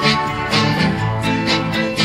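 Isolated guitar, piano, organ and brass parts of a 1971 rock single, with no drums, bass or vocals. Sustained chords with a steady strummed rhythm.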